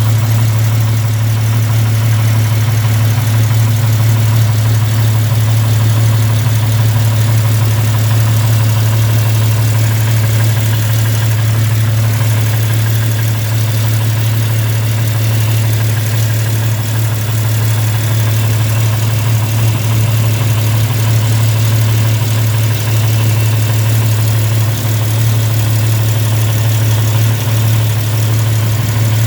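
Jeep inline-six engine idling steadily with the loud ticking of an exhaust leak from a cracked exhaust manifold.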